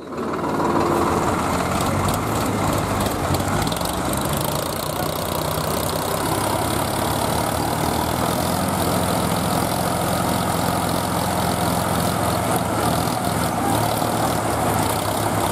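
Diesel tractor engines running steadily under load as a Sonalika DI 35 tows a second tractor by a rope.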